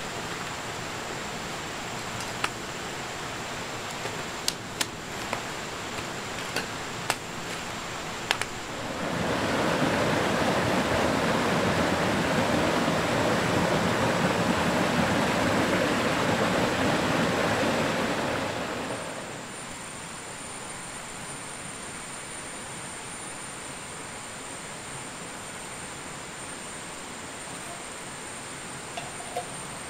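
Shallow rocky river flowing over a small cascade: a steady rush of water that swells much louder for about ten seconds in the middle. A few light knocks and clicks come in the first few seconds, and the later, quieter part carries a thin steady high whine.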